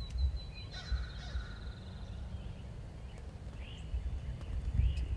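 Wild turkey gobblers in strut, making deep, low drumming pulses. A high thin trill from a small bird runs through the first two seconds, and a few short bird chirps come near the end.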